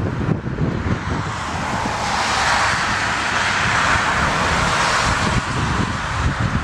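Twin-engine widebody jet airliner on final approach, its engine noise swelling into a loud, steady hiss from about two seconds in as it comes nearer. Gusty crosswind buffets the microphone with a low rumble.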